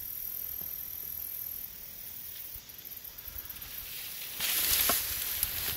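Outdoor ambience: a steady high-pitched hiss with low rumble beneath. About four and a half seconds in comes a louder rustling noise lasting around half a second.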